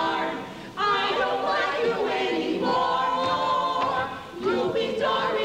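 A chorus singing unaccompanied, in phrases broken by two brief pauses, about a second in and about four seconds in.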